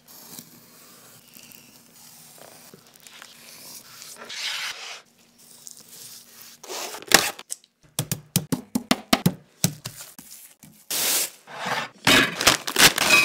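Knife slicing through a raw chicken breast on a wooden cutting board, with soft tearing and scraping strokes. Later come loud short crunching bursts and a brief whirr as a food processor grinds Hot Cheetos.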